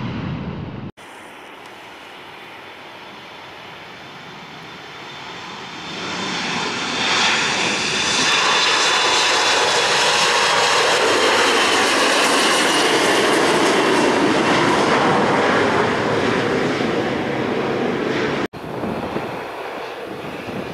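Jet airliner's engines growing louder as the plane comes close, then a loud steady rush with a faint whine that slides down in pitch as it passes. The sound cuts off abruptly near the end.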